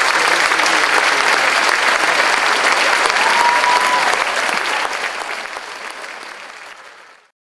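Theatre audience applauding, with one short high steady note heard over it about three seconds in; the applause fades out and cuts to silence near the end.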